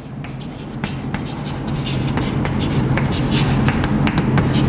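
Chalk writing on a blackboard: a run of quick scratching strokes and taps, over a steady low hum.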